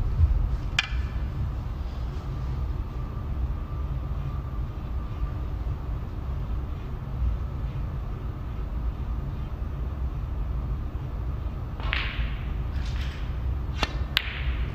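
Snooker shot: the cue tip strikes the cue ball, then sharp clicks of the balls meeting near the end, over a steady low room hum. A single sharp click comes just under a second in.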